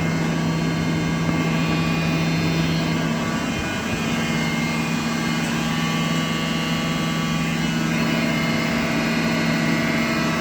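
TOS BHU 32A cylindrical grinding machine running with a steady mechanical hum, its main low tone stepping up in pitch about four seconds in.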